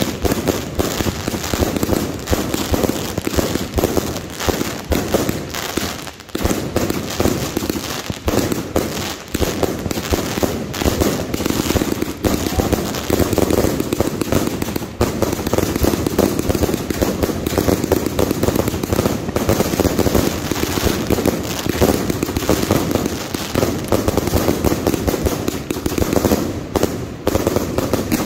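Fireworks going off overhead at close range, in a dense, nearly unbroken barrage of pops, bangs and crackles.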